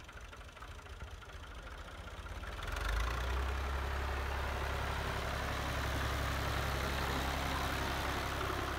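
Fiat 480 tractor's three-cylinder diesel engine running. It gets louder about three seconds in, then runs steadily.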